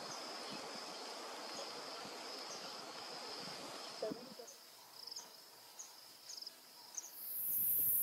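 Bush ambience: an insect trills steadily on one high note, with faint short high chirps above it. Near the end a much louder, very high shrill hiss sets in.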